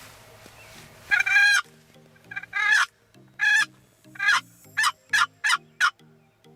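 Wild turkey gobbling: a string of loud, rapid, rattling gobbles, the first long and the later ones shorter and quicker. Background music with a steady beat plays underneath.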